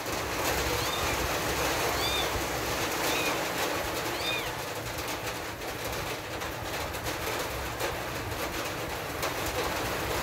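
Newborn kittens giving thin, high mews, four short calls about a second apart in the first half, over a steady hiss.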